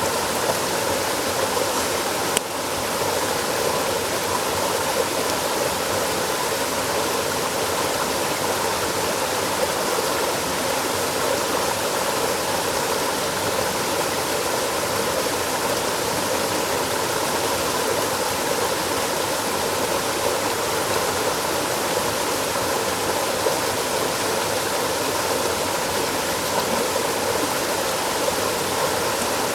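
Steady rush of flowing water from a stream, unchanging throughout, with a single sharp click about two and a half seconds in.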